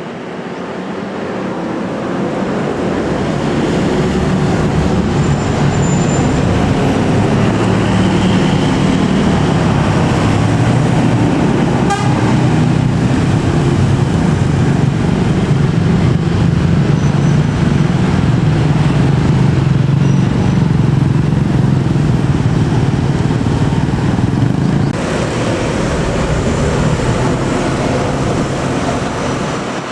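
A large bus's diesel engine running close by, growing louder over the first few seconds, then holding steady before easing off slightly near the end. A single sharp knock about twelve seconds in.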